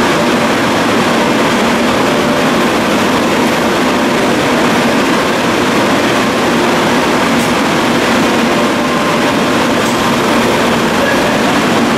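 Athens Metro train standing at the platform, its onboard equipment running steadily: a constant loud hiss and hum that does not rise or fall.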